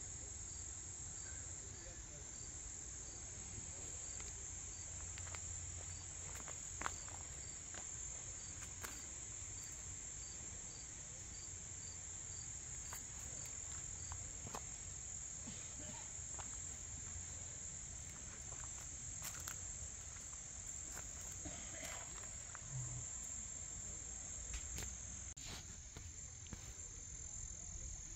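Insects trilling steadily in a continuous high-pitched chorus, with a fainter chirp repeating about twice a second during the first half.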